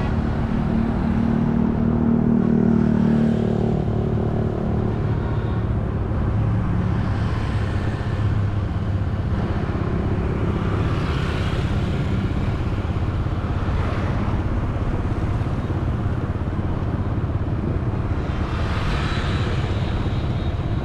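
Road traffic: a motor vehicle engine running steadily with a low hum, swelling louder about two seconds in, with the whoosh of other vehicles passing around the middle and near the end.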